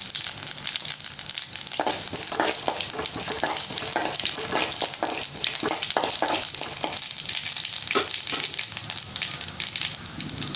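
Mustard seeds, cumin and dals sizzling and crackling in hot oil in a metal kadai, the tempering stage of a South Indian stir-fry. A spoon stirs and scrapes against the pan from about two seconds in until near eight seconds.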